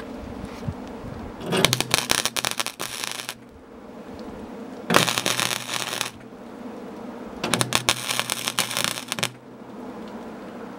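MIG welder plug-welding shut holes in a truck's steel door panel: three crackling bursts of weld, each one to two seconds long, with a low steady hum between them.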